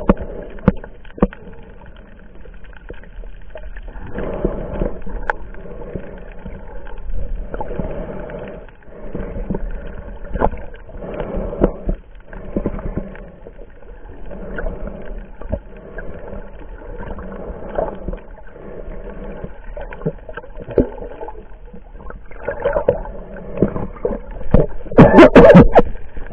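Water heard from a camera held underwater: muffled sloshing and swirling with swimming strokes, scattered sharp clicks and knocks, and a loud splash near the end.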